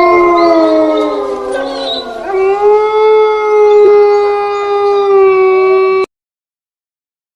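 Horror-theme ringtone of long drawn-out howls: one howl sliding slowly downward in pitch, then a second that rises a little and holds steady before cutting off abruptly about six seconds in.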